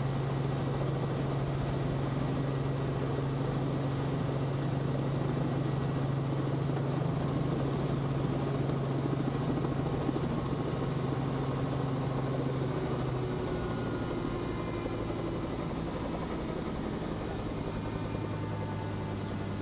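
Helicopter engine and rotor running on the ground, heard from inside the cabin as a steady drone. About two-thirds of the way through, the drone drops in pitch and grows slightly quieter.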